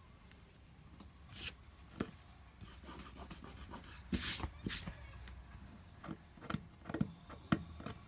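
Cloth rustling and rubbing as hands press and handle glued fabric pieces, with a few short knocks against the tabletop.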